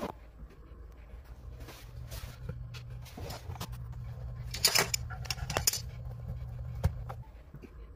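Brass plumbing fittings under a sink being handled by hand: a few sharp metallic clicks and scrapes, loudest about halfway through, over a steady low hum that stops shortly before the end.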